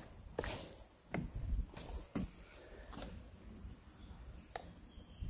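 Slow footsteps on wood-chip ground, a few soft steps about a second apart, with a faint high chirp repeating several times a second in the background.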